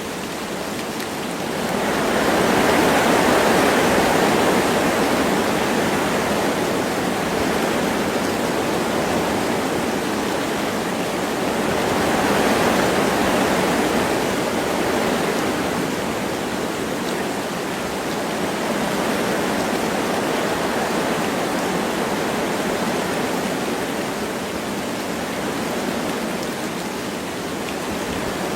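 Wind gusting through forest trees with light rain falling, a steady rushing that swells about two seconds in and again around twelve seconds before easing off.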